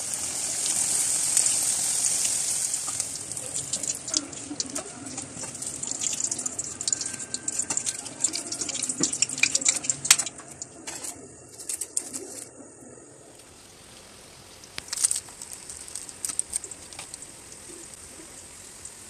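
Chicken crispy roll deep-frying in hot oil in a karahi: a sizzling hiss with many crackles and pops, loudest in the first few seconds, dying away about ten seconds in. Later, a few short crackles.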